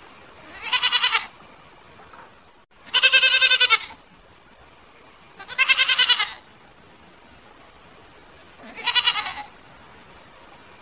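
Goats bleating: four separate quavering bleats, each under a second long, about every three seconds.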